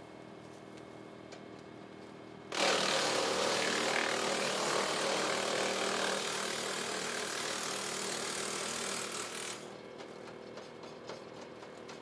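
WoodMaxx WM-8M PTO-driven 8-inch wood chipper running off a tractor; about two and a half seconds in it bites into a small tree and chips it loudly for about seven seconds. The chipping then stops abruptly and the machine runs on with light clicks, the bushy top of the tree too thick for it to pull in.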